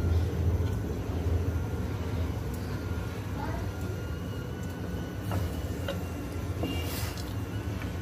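Steady low rumble of a gas stove burner under a pot of boiling water, with a few light clinks and taps of utensils against the pot in the second half.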